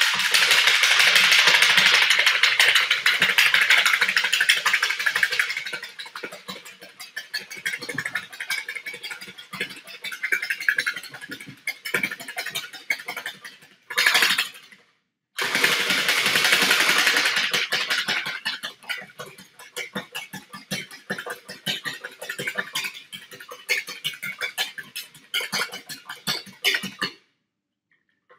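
A whisk beating egg whites very fast in a plastic bowl: a rapid, continuous run of clicks against the bowl, loudest in two spells at the start and about halfway through and lighter in between. It stops briefly just after the middle and again near the end.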